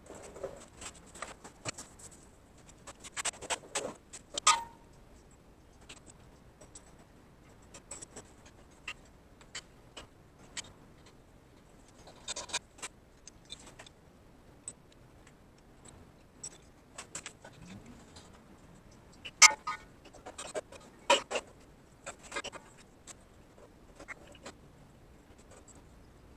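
Irregular clicks, taps and light metal clinks from handling propane tank fittings and hoses, with a cluster of knocks about four seconds in ending in a brief metallic ring. The loudest knock comes about twenty seconds in.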